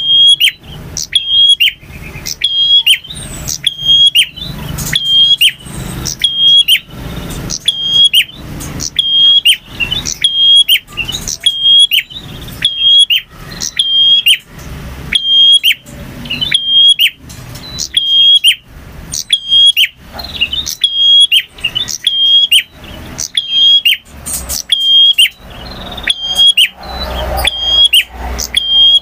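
Male prinia (prenjak) singing: loud, sharp, high chirping notes repeated about every three-quarters of a second without a break.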